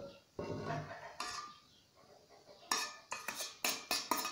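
A metal spoon scrapes thinned tomato paste out of a metal bowl, then a quick run of sharp metal clinks, about four a second, as the spoon knocks against the bowl to empty it.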